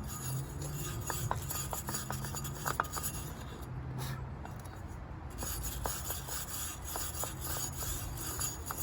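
Rubbing and scraping on a metal golf-cart rear hub as it is cleaned up after sitting on the shelf, with scattered light clicks.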